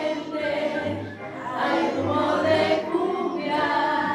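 A choir of children and adults singing together, several voices holding notes and moving through a melody.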